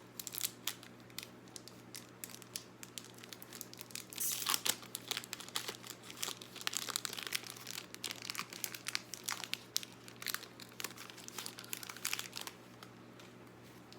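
Foil wrapper of a Pokémon trading-card booster pack being torn open and crinkled by hand: a dense, irregular crackling that stops about twelve and a half seconds in.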